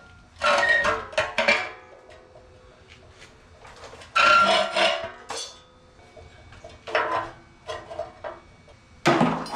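Hollow steel air-compressor tank clanking and ringing as it is shifted and set down on a metal mounting bracket, in about five separate bursts of knocks and scrapes, loudest about four seconds in and near the end.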